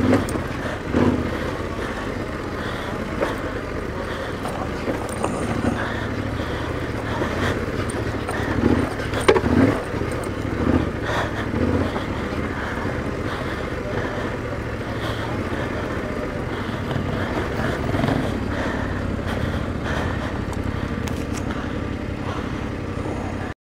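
Trail motorcycle engine running steadily at low revs while riding down a rough, stepped dirt track, with scattered knocks and thuds from the bike going over bumps.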